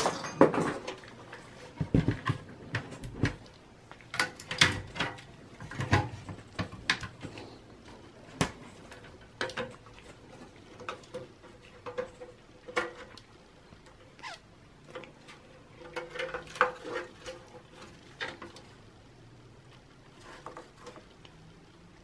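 Irregular clicks, taps and light knocks, with scuffing, as a Dell Optiplex 5050 SFF motherboard and its steel chassis are handled with gloved hands. The sounds grow sparse over the last few seconds.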